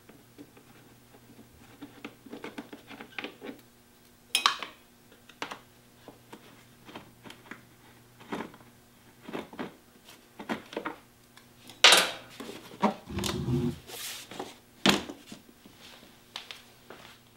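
Irregular clicks, taps and clinks of a small hand tool on metal fittings as a motorcycle's fuel tank is being unbolted, with the loudest clatter about twelve seconds in and a short low rumble just after.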